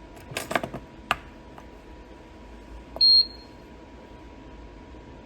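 A few quick clicks and taps, then about three seconds in a single short, high-pitched beep from the Hitech PWS6600T-P touchscreen panel's buzzer, the beep it gives when a touch on the screen registers.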